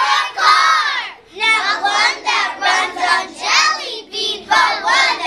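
A group of young children singing together in unison, in short sing-song phrases with brief pauses between them.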